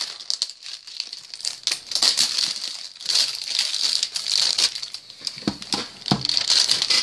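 Plastic wrapping crinkling and rustling in repeated bursts as it is pulled off a card booster box. Near the end come two soft knocks as the box is set down on a wooden tabletop.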